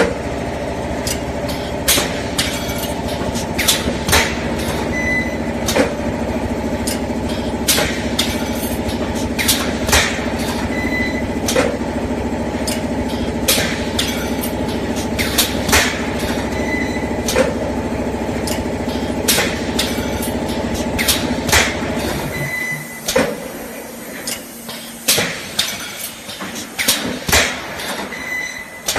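Automatic cable tray wire mesh welding machine running: a steady motor hum under repeated sharp metallic clacks, with a short high beep now and then. About 22 seconds in the hum stops and only irregular metal clanks carry on.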